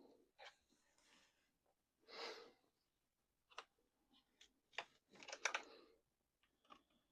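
Quiet clicks and light rattling from small parts of a radio-control truck chassis being handled and taken apart. There is an audible exhale about two seconds in, and a busier run of clicks a little after five seconds.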